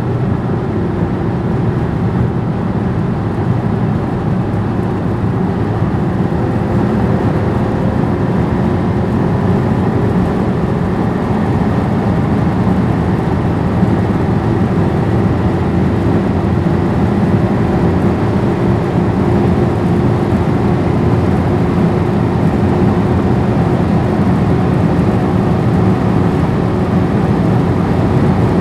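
Skoda Superb 4x4 driving at high speed: a steady rush of tyre and wind noise over a faint engine drone whose pitch creeps slightly upward.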